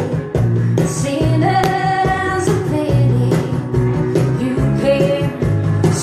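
Live band playing a song: a woman sings while slapping out a beat on a cajón, with an electric bass underneath.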